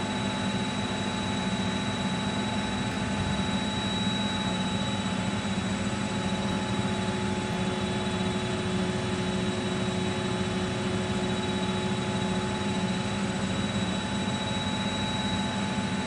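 Miele Novo Duo washing machine in its final spin: the drum spins at a steady speed, with a constant hum and a steady high motor whine that do not change.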